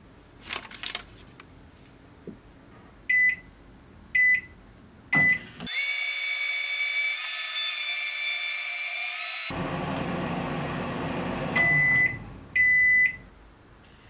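Microwave oven: a couple of knocks, then three short keypad beeps, then the oven running with a steady hum for about four seconds. Near the end come two longer beeps, the end-of-cycle signal.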